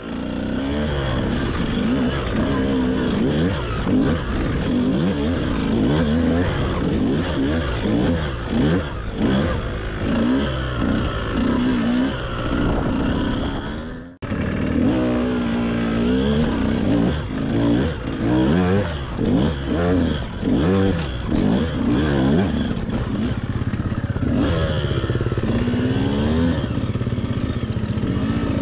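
KTM enduro motorcycle engine revving up and down in repeated quick blips of the throttle while riding over rough, log-strewn ground. The sound cuts off abruptly about halfway through, then the blipping resumes and settles into a steadier run near the end.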